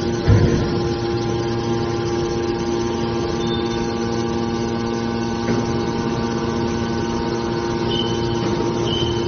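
Hydraulic scrap-metal baler's power unit (electric motor and hydraulic pump) running with a steady hum. There is a thump about a third of a second in, and a few short high squeaks near the end.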